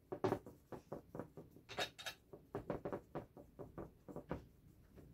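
Flat paintbrush scrubbing acrylic paint onto a hard MDF board: a quick run of short strokes, about four a second, stopping shortly before the end.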